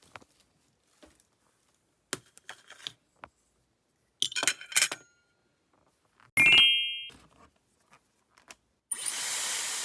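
Light clicks and clinks of small hard objects, with a louder clink about six seconds in that rings briefly, then about a second of hiss near the end.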